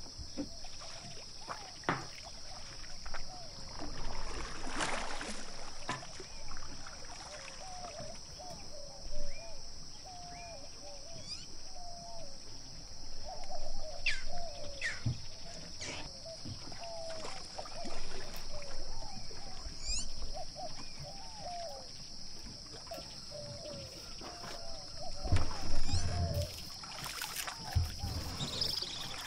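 Hands working dough on a board and then on baking paper: soft rustles and light knocks, busiest and loudest near the end. Behind it runs a steady high hiss and a continuous string of short, wavering animal calls.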